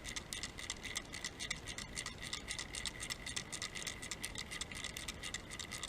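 The mixing ball rattling inside a freshly activated 2K aerosol paint can as it is shaken, a fast, even run of faint clicks several times a second. The shaking mixes the released hardener into the paint.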